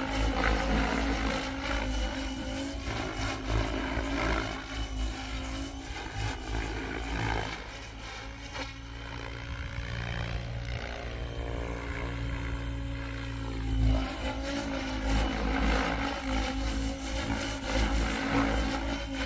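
GooSky RS7 RC helicopter in flight, its main rotor and electric motor whirring steadily, with the pitch and loudness swelling and dipping as it manoeuvres; quieter for a few seconds in the middle.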